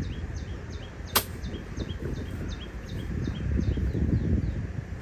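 A bird calling a steady series of short, falling chirps, about two to three a second, over wind rumbling on the microphone. One sharp click sounds about a second in.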